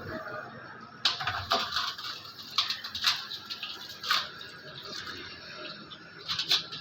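Sharp metallic clicks and clanks of tools and pump parts being handled on a workbench while a tractor diesel injection pump is taken apart, about six separate knocks at uneven intervals.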